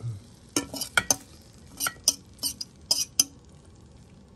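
Metal fork scraping and clinking against a skillet and plate as sautéed celery tops are pushed out of the pan, in a quick series of about eight short scrapes.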